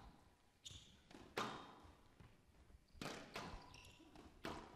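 Squash ball being struck by rackets and hitting the court walls during a fast rally: about five sharp, hollow smacks at uneven intervals.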